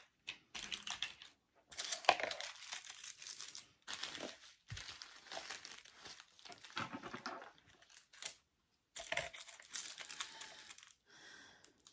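Small plastic Ziploc bag of round resin diamond-painting drills being handled and opened, the plastic crinkling in short irregular bursts with brief pauses.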